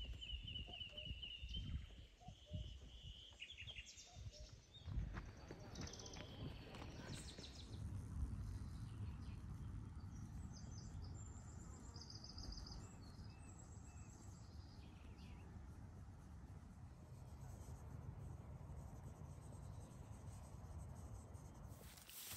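Outdoor ambience: birds chirping now and then over a steady low rumble.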